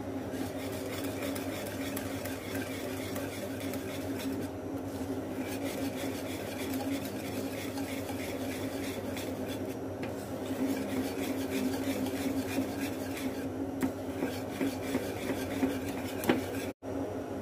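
Wire whisk stirring a thick white sauce of milk, flour and cheese in a metal saucepan, its wires scraping and clicking against the pan, with a few sharper clicks near the end. A steady low hum runs underneath.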